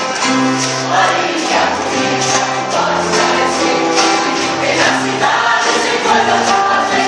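Music: voices singing together like a choir over held instrumental notes and a bass line, with a light steady beat.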